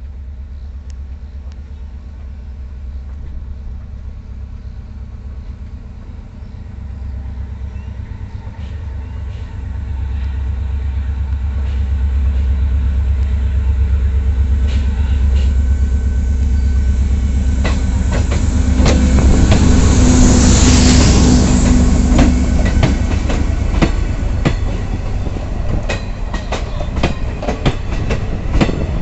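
Diesel electric multiple unit (DEMU) passenger train approaching and passing close by. A steady low diesel drone grows louder and peaks about twenty seconds in as the front power car goes past. After that comes a quick run of wheel clicks over rail joints as the coaches roll by.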